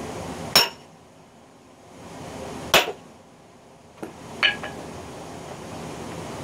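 Sledgehammer striking a steel splitting wedge driven into an oak log: three sharp metallic blows about two seconds apart, the first with a brief high ring, and a light tap just before the third.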